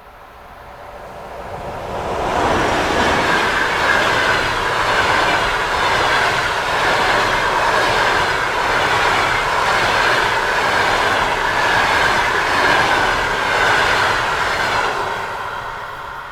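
Passenger train hauled by an EP2K electric locomotive passing close by: the wheels rumble and clatter on the rails. The sound swells over about two seconds and holds loud with a steady high ring, then starts to fade near the end.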